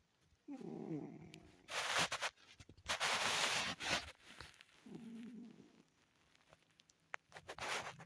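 A cat snoring in its sleep: two rattling, pitched snores, about half a second and five seconds in, with three louder hissing rushes of breath between and after them.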